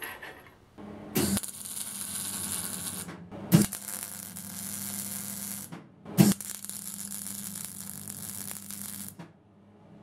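MIG welder laying three short welds on steel bracket parts. Each weld is two to three seconds of crackling arc hiss over a steady electrical hum, and each starts with a sharp crack as the arc strikes, with brief pauses between them.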